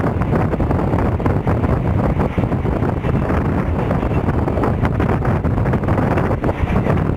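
Mumbai Western Railway suburban electric train running at speed: a steady low rumble with continuous rattling clatter, and wind buffeting the microphone.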